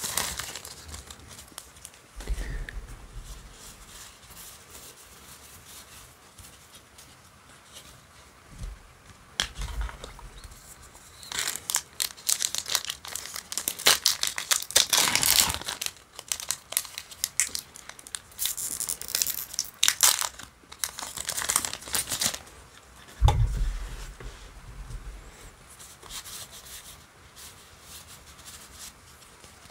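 Foil trading-card booster pack wrappers crinkling and tearing as they are opened by hand, in irregular bursts, with three dull thumps scattered through.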